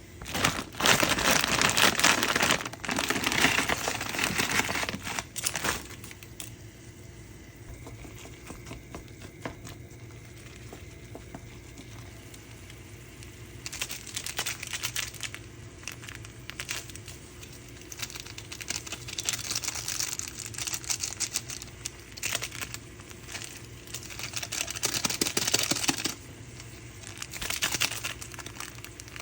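Packaging crinkling as it is handled, in loud bursts with a quieter stretch in the middle.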